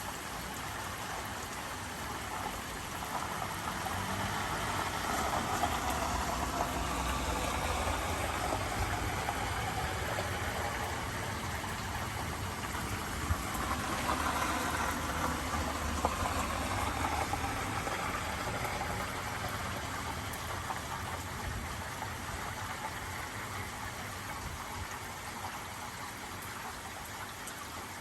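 Minor storm: a steady hiss of rain that swells louder twice, with a low rumble underneath.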